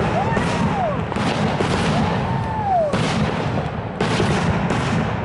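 Ground fountain fireworks spraying sparks: a steady hiss broken by sharp crackling pops, with a whistle that rises and falls twice.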